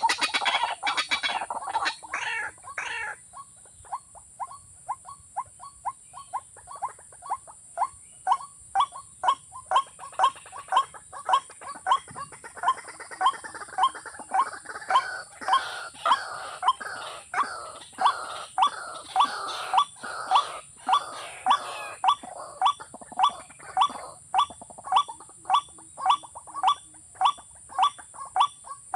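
A bird calling over and over in short, evenly spaced notes, about two a second, louder from about eight seconds in. A busier run of calls fills the first three seconds, and a steady high hiss runs underneath.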